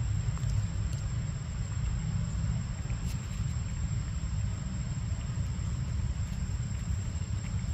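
Steady low outdoor rumble, with a faint, steady high whine above it and a few faint small clicks.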